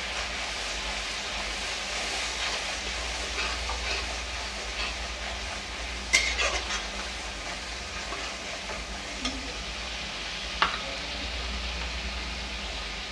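Onion and spice paste frying and sizzling in a metal kadhai while a metal spatula stirs and scrapes it. There are a couple of sharp clicks, about six seconds in and again near ten and a half seconds.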